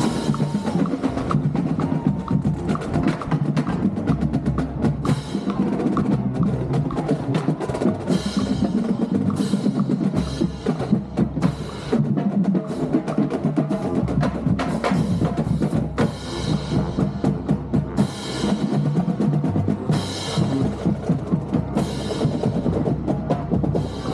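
Marching band drumline playing a cadence: rapid snare strokes and rolls over shifting low notes from tuned bass drums, with bright accents recurring every second or two.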